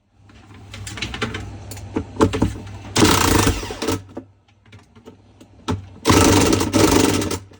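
A power tool run in short bursts on a washing machine, with rattling metal in between. The loudest bursts come about three seconds in and again about six seconds in, each lasting around a second, over a steady low hum.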